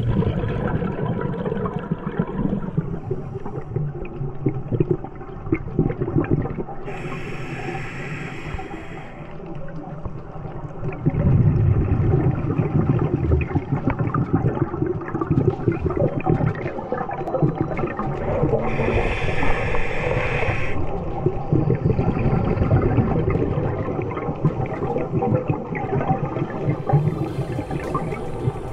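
Underwater sound through a camera housing: a steady low rumble with constant crackle, broken twice by about two seconds of hissing scuba regulator exhaust bubbles, about a third of the way in and again about two-thirds in.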